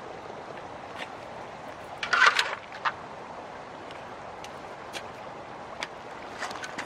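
Metal hubcap dragged on a magnet line through shallow river water, clattering and splashing over stones in scattered knocks, with the loudest cluster about two seconds in. Under it runs a steady rush of moving water.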